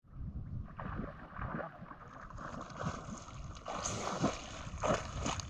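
Small waves gurgling and slapping against a camera held at the sea's surface, with a louder splash from a swimmer about four seconds in.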